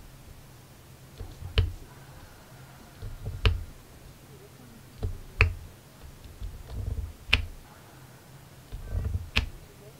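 Diamond painting drill pen pressing square resin drills onto the sticky canvas: a sharp click about every two seconds, five in all, each with soft taps and thuds around it.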